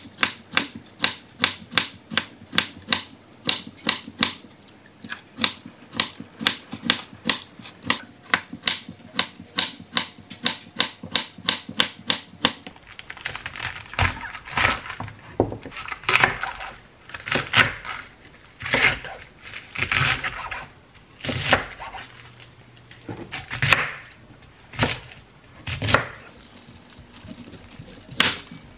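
Kitchen knife cutting vegetables on a wooden cutting board. For the first twelve seconds it slices cucumber in fast, even strokes, about three a second. Then come slower, louder, crunchy cuts through a cabbage head, roughly one a second, with the last strokes going into a beet.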